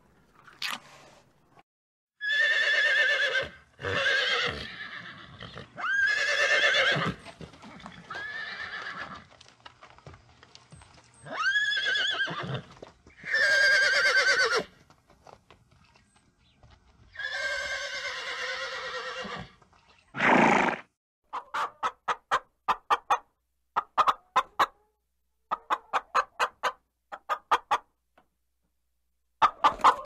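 A horse neighing, a string of loud whinnies with a shaky, wavering pitch. Near the end, hens cluck in quick runs of short notes.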